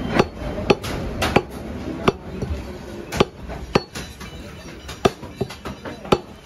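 Butcher's cleaver chopping beef on a wooden block: seven or so sharp knocks at uneven intervals, roughly one a second.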